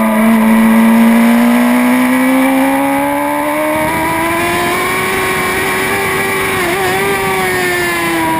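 Racing motorcycle engine heard on board, its revs climbing steadily as the bike accelerates, then holding high with a brief dip about seven seconds in, with wind rush building alongside.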